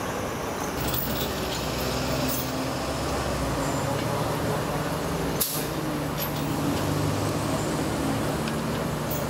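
Heavy truck diesel engine idling steadily, with a brief sharp hiss about five and a half seconds in.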